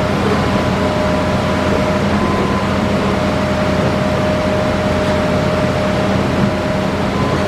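Hitachi Zaxis 5G excavator's diesel engine running steadily, with a thin steady whine over it.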